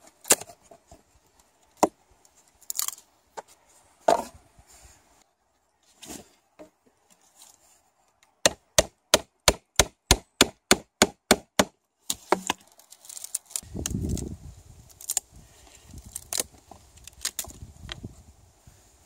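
A thin wooden board being split lengthwise with a knife. Scattered knocks and scrapes give way to a quick run of about a dozen evenly spaced sharp knocks, about four a second, as the blade is driven into the end of the board. Then comes crackling and splintering as the wood splits apart.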